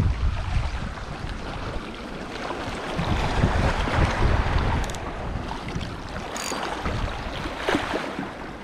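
Gusty wind buffeting the microphone over the wash of sea waves.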